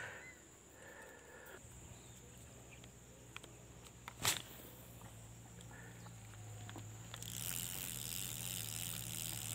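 Quiet outdoor ambience with a faint steady low hum and a single sharp click about four seconds in. From about seven seconds, a steady high-pitched buzzing of insects in the trees comes in.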